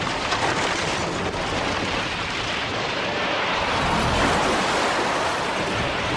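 Fire of burning timber props crackling, then, from about four seconds in, the rushing rumble of an undermined tower collapsing.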